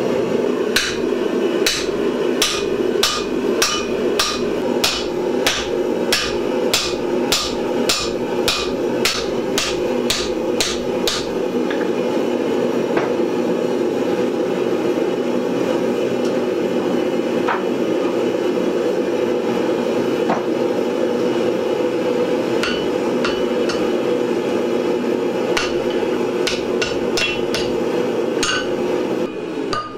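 Hand hammer blows on a hot square steel bar on an anvil, at about two a second for the first ten seconds or so, then only a few scattered blows, then another quick run near the end. Under it a gas forge's burner runs with a steady rushing noise.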